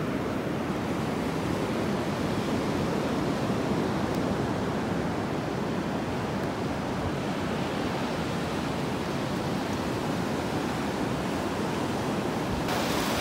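Surf breaking on a sandy beach: a steady, even wash of waves.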